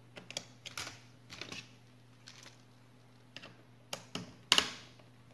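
Irregular plastic clicks and taps from a laptop's parts being handled during disassembly, with a louder clatter about four and a half seconds in.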